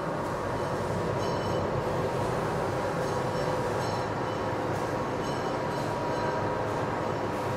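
Steady mechanical noise of machinery running in a large factory hall: a continuous hum with a steady tone and brief high-pitched squeals now and then.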